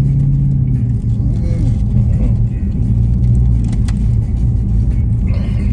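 Steady low rumble with an even hum of a running car engine, with a few faint clicks.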